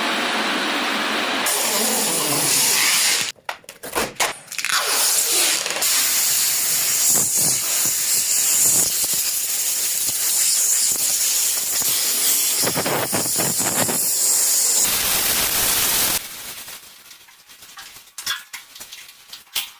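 Loud steady hiss, broken by a short gap about three seconds in and cut off suddenly about sixteen seconds in, followed by quieter scattered clicks and knocks.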